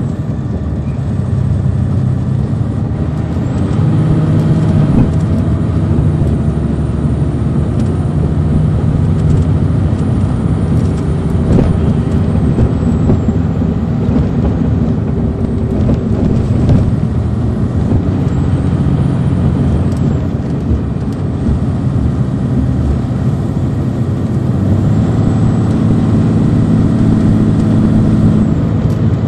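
Detroit Diesel Series 60 diesel engine of a 2002 MCI D4000 coach, heard from on board while the bus is driven. Its drone swells and eases off several times as the bus pulls and lets off, with a faint high whistle that rises and falls with it.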